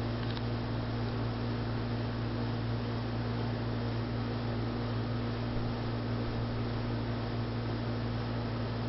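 Hampton Bay Veranda 2 ceiling fan running steadily on medium speed: an even motor hum under a constant airy hiss.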